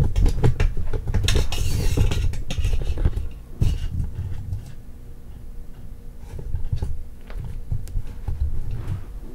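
Hands handling computer hardware: a run of light clicks, knocks and clatter with a low rumble, and a scraping rustle about a second and a half in, thinning to scattered clicks after about three seconds.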